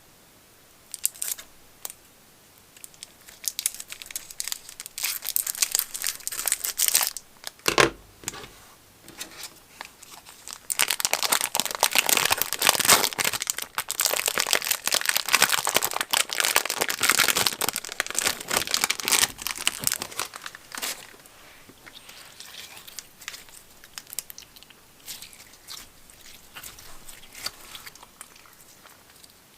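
Slime being squeezed and worked by hand, making dense crinkly, crackling pops, busiest and loudest in the middle stretch, with a sharper knock about eight seconds in.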